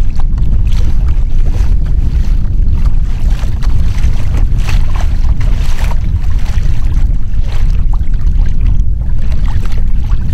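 Wind buffeting the microphone in a heavy, steady low rumble, with choppy water splashing and lapping against a kayak hull in short hissing bursts.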